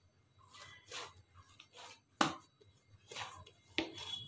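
Soft sweet-potato and flour dough being kneaded by hand in a stainless steel bowl: irregular soft thuds and squishes as it is pressed and turned, with sharper knocks about two seconds in and near the end.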